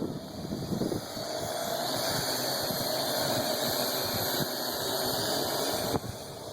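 Parrot AR.Drone quadcopter in flight: its four electric rotors give a steady whine that grows louder about a second in, holds, and drops away suddenly near the end.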